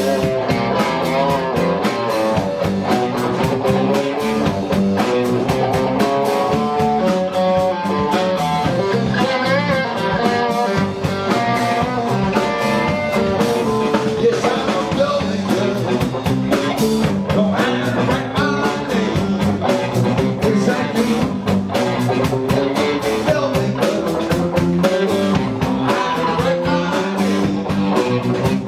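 Live blues band playing a blues-rock number on electric guitars and drum kit, loud and steady.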